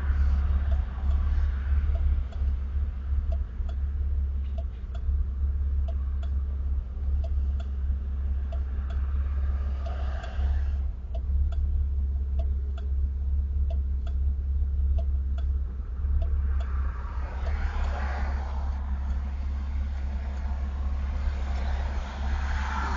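Camaro's 347 cubic-inch V8 idling roughly, its low rumble wavering unevenly, with faint regular ticks about twice a second.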